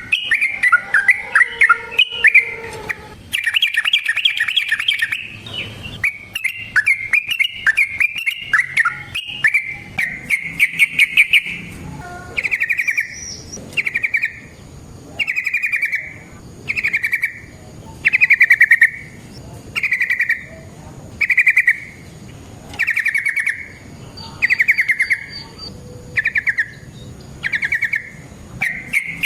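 Yellow-vented bulbul (trucukan) singing loudly. For about the first twelve seconds it runs dense, rapid chattering phrases together, then it settles into short bubbly phrases repeated roughly every second and a half.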